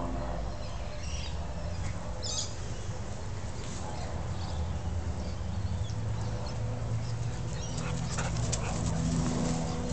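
A dog whimpering and whining, with faint high whine tones over a steady low rumble on the microphone.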